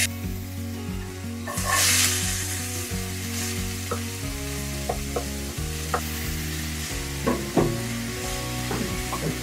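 Chopped onion hitting hot oil in an iron wok with a loud sizzle about two seconds in, then sizzling on as a wooden spatula stirs it with the garlic and ginger, scraping and knocking against the pan every second or so.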